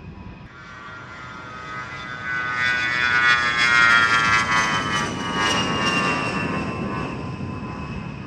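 An A-10 Thunderbolt II's twin TF34 turbofan engines at takeoff power as the jet rolls past on the runway. A high whine over a rumble swells to its loudest about four seconds in, then falls in pitch and fades as the jet goes by.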